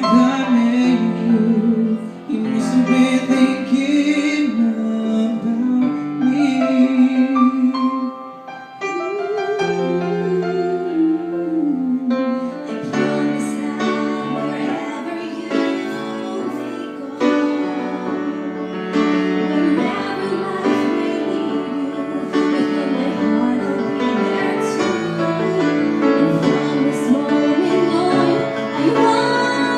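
Live music from a small wedding band at a sound check: a wavering melody line over held chords, playing continuously.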